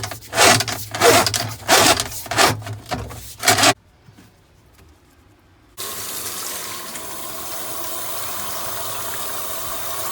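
A run of loud pulses about two a second, then a brief lull. Then water starts running in a steady rushing stream, like a tap or a fixture filling, that begins suddenly about six seconds in.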